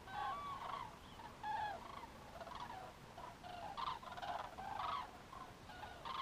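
A flock of cranes calling: many short, arched calls overlapping and repeating.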